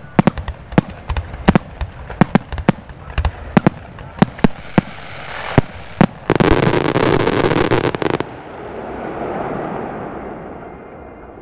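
Aerial fireworks show: a rapid, irregular series of sharp shell bursts for about six seconds, then a dense, loud barrage for about two seconds that stops abruptly and leaves a fading rumble and hiss.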